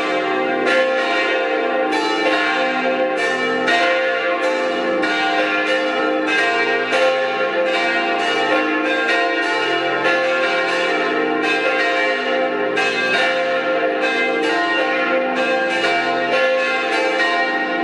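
Several church bells ringing together in a continuous peal, their strokes overlapping without a break so that many ringing tones hang over one another.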